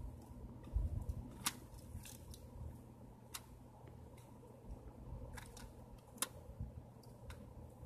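Hand-handling sounds of a toy front-loader garbage truck and the small cardboard carton on its forks: a few scattered sharp clicks of plastic parts and cardboard, with light rustling and a low rumble of handling.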